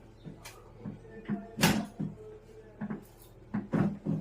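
A run of short, sharp cracks and knocks during a chiropractic low-back adjustment, about eight in all with the loudest a little before halfway: spinal joints popping as they are manipulated, mixed with thumps of the body on the treatment table.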